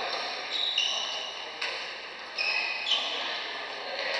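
A badminton rally: several sharp racket strikes on the shuttlecock, with short high squeaks from court shoes on the sports floor between them. The strikes echo in a large hall.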